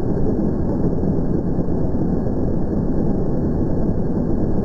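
LEGO radial six-cylinder vacuum engine running steadily at speed, a dense, fast rattle of its plastic pistons and linkages.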